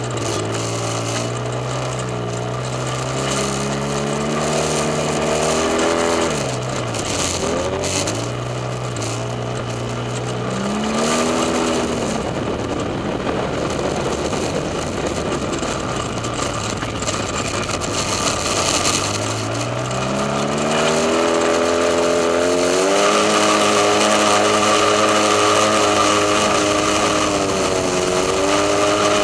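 Side-by-side UTV engine driving hard over sand: its pitch rises and falls as the throttle is worked, dropping sharply twice in the first dozen seconds, then climbing about twenty seconds in and held high under load up a steep dune.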